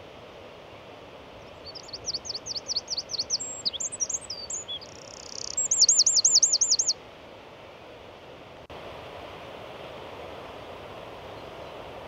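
A songbird sings loudly for about five seconds: a run of quick repeated notes, a few mixed notes and a short buzz, then another run of quick repeated notes, ending abruptly. A steady wash of surf and wind runs underneath.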